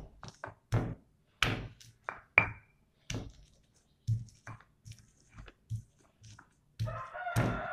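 Stone pestle knocking on a flat stone cobek as garlic cloves are smashed: a run of irregular sharp knocks, one or two a second. Near the end a rooster crows.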